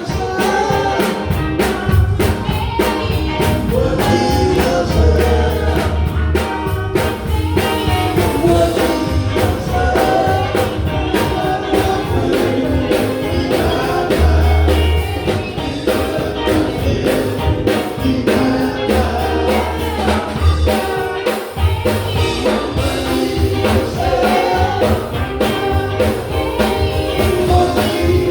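Live gospel band performing: a singer over drums, guitar and keyboard, with a steady drum beat and bass.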